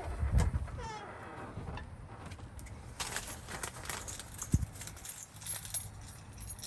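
Handling noises inside a car: a couple of low thumps, a brief squeak about a second in, then light clicks and rustling with one sharp knock near the middle.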